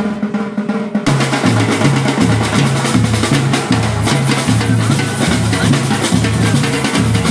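Music with drums: a sustained opening that gives way, about a second in, to a full beat with a stepping bass line.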